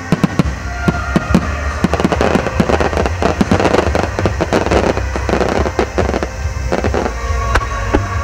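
Aerial firework shells bursting, many sharp bangs in quick succession that thicken into a dense crackle of bursts in the middle, then thin out near the end.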